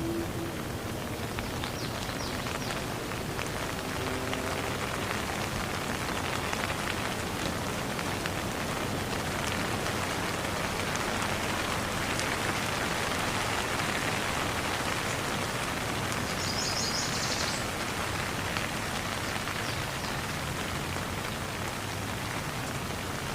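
Steady rain falling, a constant hiss with many individual drop impacts on a surface.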